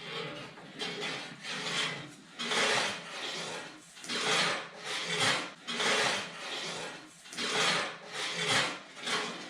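Rhythmic rasping strokes on wood, about one stroke a second, like a blade or rasp drawn back and forth.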